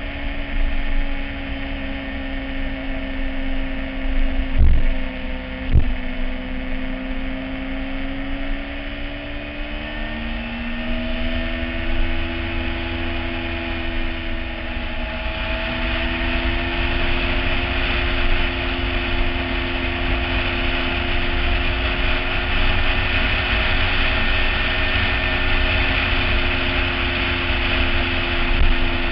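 Yamaha YZF-R6's inline-four engine running as the bike rides along, its pitch rising about ten seconds in, with wind and tyre-on-road noise growing louder in the second half. Two sharp knocks about five and six seconds in.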